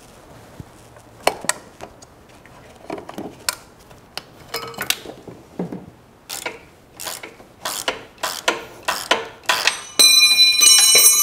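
Metal tools clicking and clinking irregularly against fittings and linkage in a truck's engine bay. About ten seconds in, a loud bell-like metallic ringing with several pitches at once starts suddenly and lasts about a second and a half.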